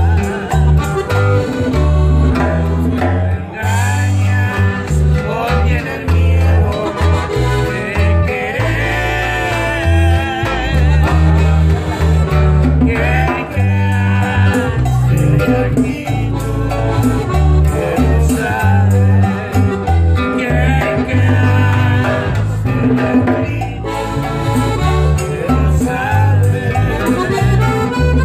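Live norteño music: a piano accordion and an acoustic guitar playing a bouncy, steady beat, with a man singing over them.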